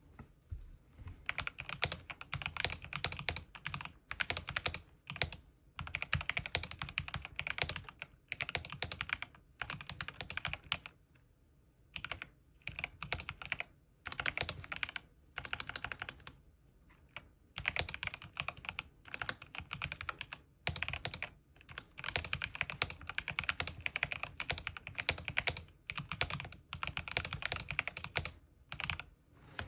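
Corsair K70 mechanical gaming keyboard being typed on: runs of rapid keystroke clicks broken by short pauses of about a second.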